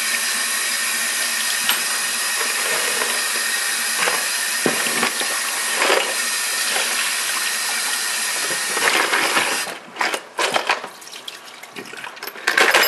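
Tap water running steadily into a stainless steel sink and a plastic bowl as small engine parts are rinsed. About ten seconds in the water stops and small steel parts clatter and rattle in the bowl as it is tipped to drain.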